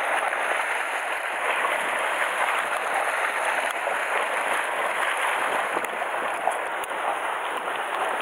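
Sea surf washing steadily against a rocky shore, a constant hiss of moving water.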